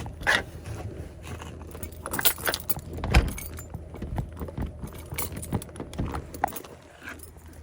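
Keys jangling and clinking amid handling clatter as things are fitted into a bag, with scattered clicks and knocks and one louder thump about three seconds in.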